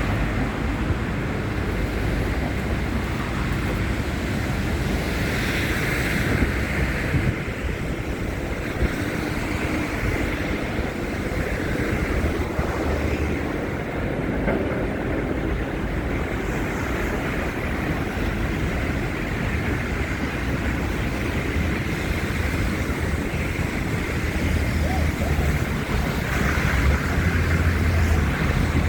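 Storm wind buffeting a handheld phone's microphone: a steady rushing noise with a deep rumble, swelling a little near the end.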